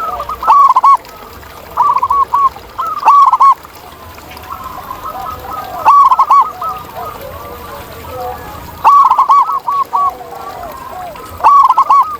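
Zebra doves (perkutut) cooing: loud short bursts of quick rolling coos repeated every one to three seconds, with softer, lower coos in between.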